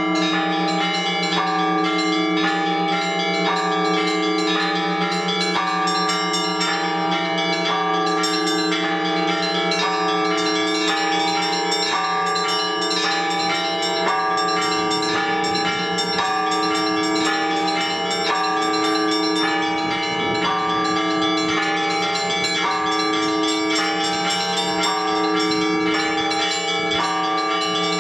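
Orthodox church bells ringing in a continuous peal for the all-night vigil: smaller bells are struck again and again in a repeating pattern over the long, sustained hum of the larger bells.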